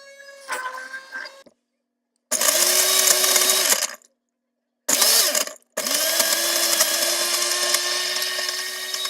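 Countertop blender motor blending raspberries, lime, sugar and soda for a raspberry margarita. It runs in three loud pulses, each whirring up to speed: one of under two seconds, a very short one, then a long steady run.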